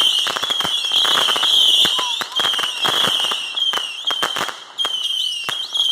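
Consumer fireworks going off: a wavering high-pitched whistle that carries on almost without a break, over many sharp cracks and pops in quick succession.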